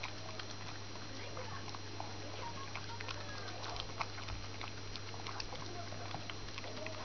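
Cavalier King Charles Spaniel eating from a bowl: a run of quick, irregular wet clicks and smacks of licking and chewing.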